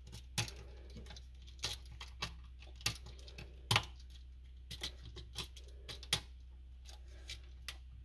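Scattered light clicks and taps of a GFCI outlet's plastic body and its copper wires being handled as the white neutral wire is hooked onto the receptacle's terminal.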